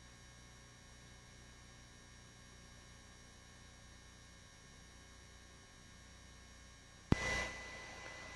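Low steady hum of an open radio line. About seven seconds in comes a sharp click as a transmission keys up, followed by hiss and a steady high tone.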